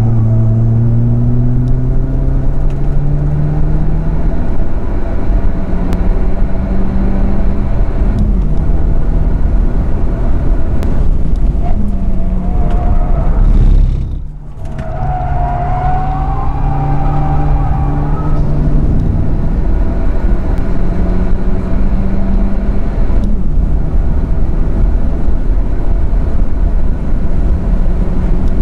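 Hyundai Avante Cup race car's four-cylinder engine heard from inside the cabin, under hard acceleration. The engine note climbs in pitch, falls back at each upshift and climbs again, and drops away briefly about halfway through.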